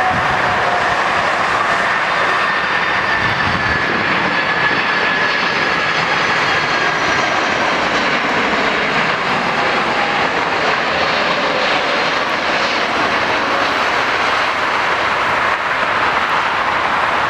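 Jet airliner engines running loud and steady as the aircraft passes, a faint whine in the noise slowly falling in pitch.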